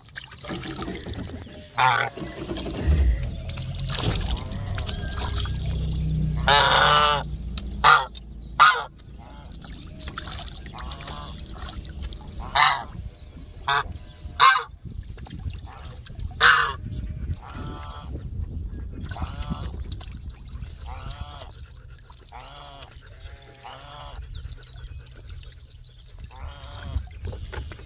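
Domestic goose honking over and over: a run of loud honks in the first half, one of them drawn out longer about six and a half seconds in, then quieter honks repeated at a steady pace.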